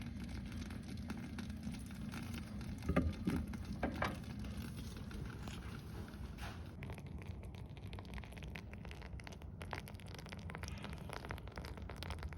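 Molten, scorched chewing gum faintly crackling and popping as it bubbles after heating in a microwave, with many small scattered clicks over a low steady hum and two brief louder sounds about three and four seconds in.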